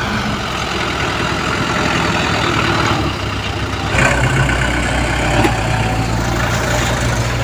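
Diesel engine of a Komatsu PC75UU mini excavator running. About four seconds in there is a knock, and the engine note becomes heavier from then on.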